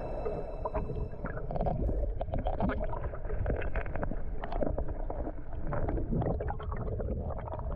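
Mountain stream rushing and gurgling over rocks, a steady splashing flow.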